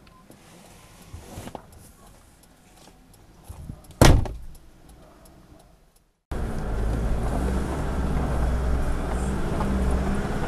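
A single loud thump about four seconds in. After a short break, a four-wheel drive's engine runs steadily with a low, even rumble as the vehicle moves along the track.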